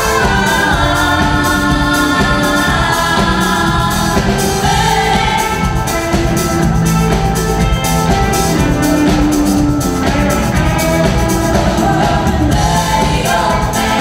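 Live band playing a song: several women singing together in harmony over drum kit, bass guitar, electric guitar and keyboard, with a tambourine shaken along.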